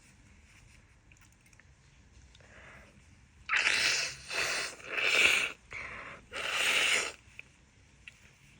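A woman with a heavy head cold blowing her congested nose hard, four forceful blows in quick succession starting about three and a half seconds in, with a weaker one between the last two.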